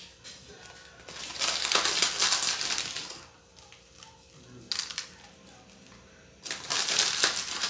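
Plastic bag of shoestring potato sticks crinkling as the dry sticks are shaken out and scattered by hand over food in foil trays. It comes in three spells: a long one about a second in, a short one near five seconds, and another near the end.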